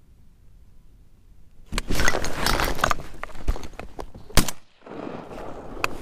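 Sudden loud rustling and knocking of clothing and gear as the hunter turns in the kayak and shoulders a shotgun. A single sharp crack comes about four seconds in.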